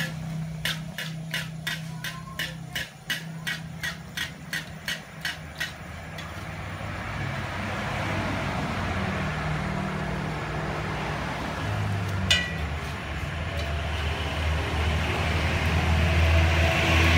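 Regular sharp metallic taps, about three a second, for the first six seconds. Then a noisy rush swells towards the end over a low, engine-like rumble, with a single sharp click partway through.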